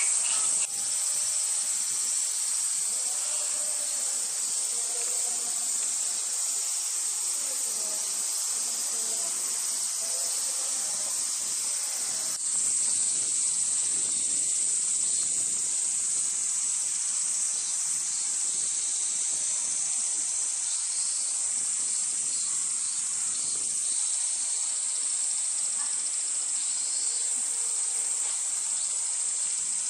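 Cicadas singing in a steady, high-pitched summer chorus, slightly louder after about twelve seconds.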